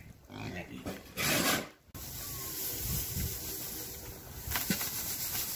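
Loose hay bedding rustling and scraping as it is pushed and spread by hand, with a few light knocks near the end. Before that, about a second in, there is a brief loud burst of noise.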